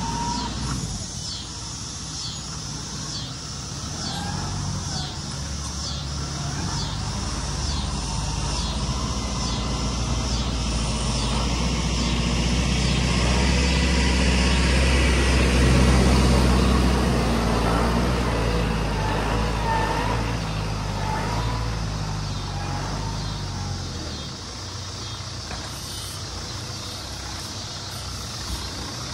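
John Deere 5100E tractor's diesel engine running steadily under load while it works the loader. It grows louder toward the middle and eases back near the end.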